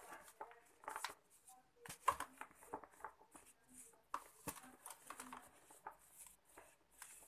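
Soft sand-cement lump crushed and rubbed between fingers, crumbling with irregular gritty crunches and crackles as grit and powder trickle into a plastic tub; the sharpest crunch comes about two seconds in.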